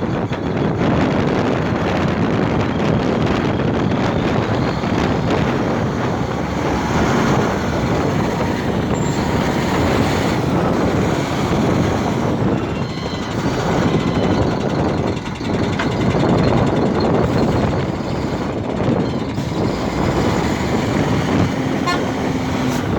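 Truck engines running steadily, mixed with wind buffeting the microphone.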